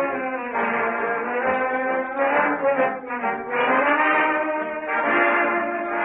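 Dance orchestra playing an instrumental passage of a slow ballad, with brass carrying sustained notes that glide in pitch around the middle of the passage.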